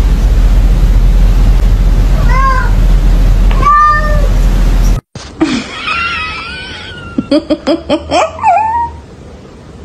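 A domestic cat meowing twice, each call arching up and down in pitch, over a steady low hum. After a cut, a Boston terrier gives high, wavering whines followed by a quick run of short yips.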